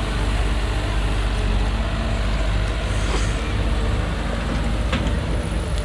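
Excavator's diesel engine running steadily with a deep rumble, with a couple of light knocks about five seconds in.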